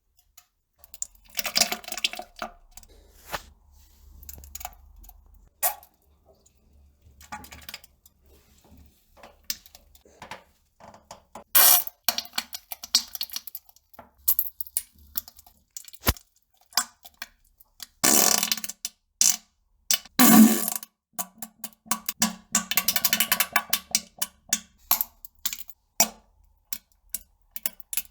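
Flatulence and bowel-movement sounds: a string of irregular sputtering bursts, some with a low buzzing tone, the loudest about 12, 18 and 20 seconds in, and a single sharp click near the middle.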